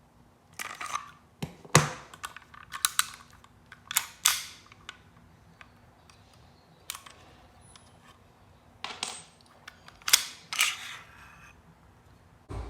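Cybergun/AW Custom Colt 1911 gas-blowback airsoft pistol being taken apart by hand: an irregular series of sharp metal clicks, snaps and short scrapes as its parts are pulled and slid apart, with a quieter stretch in the middle.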